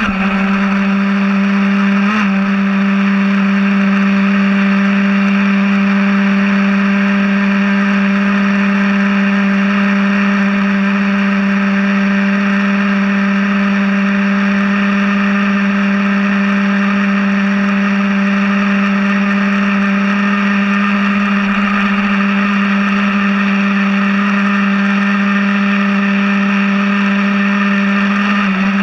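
Traxxas Slayer Pro's TRX 3.3 two-stroke nitro engine idling with the truck standing still, heard close up from the chassis. It gives a loud, buzzy drone that holds one steady pitch throughout.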